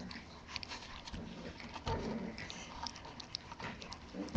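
Bulldogge puppy chewing kibble taken from a hand, a run of small irregular crunches and clicks.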